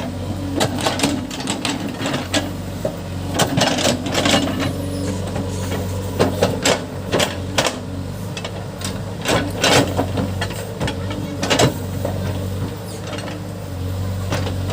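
Case backhoe loader's diesel engine running steadily under load, with frequent irregular knocks and clanks of the machine digging into earth and stone.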